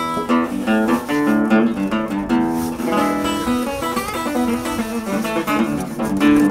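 Background music on acoustic guitar, a run of plucked notes.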